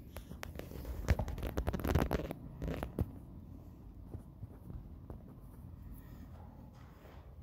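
Rustling and scratching of fabric and backpack straps close to the microphone, a dense run of scratchy clicks for the first three seconds, then fainter scattered rustles.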